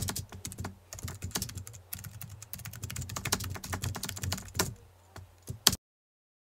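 Keyboard typing sound effect: a fast, irregular run of clicks over a faint low hum, which cuts off suddenly near the end.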